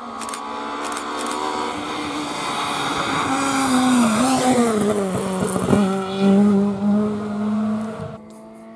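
Renault Clio III rally car coming up at speed, its engine note climbing, then falling in pitch through the middle, with a few sharp cracks. It is loudest as it comes close, holds a steady note, and cuts off suddenly near the end.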